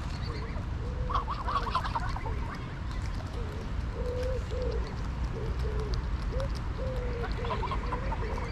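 Greylag geese calling while grazing: a steady run of short, low, arched honks, with a quick cluster of higher calls about a second in and again near the end.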